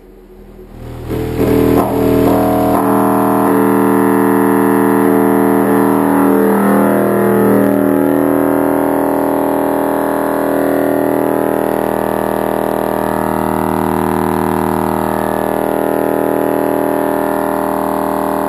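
Subwoofer in free air, driven hard by an AP SM2000 mini car amplifier, playing a bass test tone. It comes in about a second in and holds as a loud, steady, buzzy drone with many overtones. The amplifier is pushed to clipping at about 55 volts.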